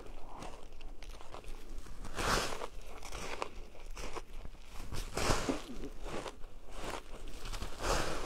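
Crunching bites and chewing of packed shaved ice, coming in bursts every second or two. The loudest crunches fall about two, five and eight seconds in.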